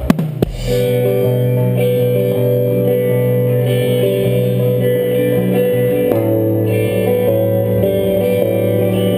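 Live band beginning a calmer song: guitars strumming sustained, ringing chords, with a change of chord about six seconds in. A couple of sharp knocks just before the music starts.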